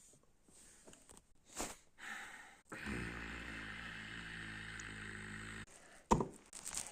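A steady mechanical hum from the BMW X7, with a low drone under it, lasting about three seconds and starting and cutting off abruptly. A few faint clicks come before it and a sharp click follows just after.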